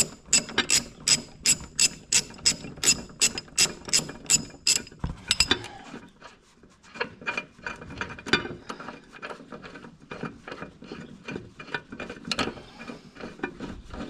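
Ratchet wrench with a 5/8 socket loosening a mower blade bolt while the blade is braced by hand: even ratchet clicks at about three a second for the first five seconds, then fainter, uneven clicking and scraping.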